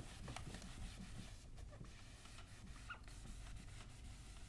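Faint rubbing of a blue chenille microfiber cloth wiping dry-erase marker off a whiteboard.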